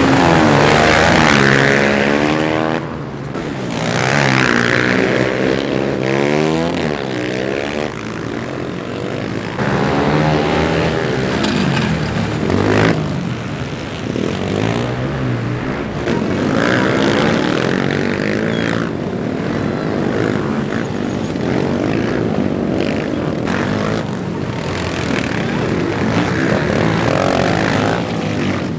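Several dirt bike engines racing together, each one revving up and dropping back again and again as the bikes accelerate and shift, with the engines overlapping one another.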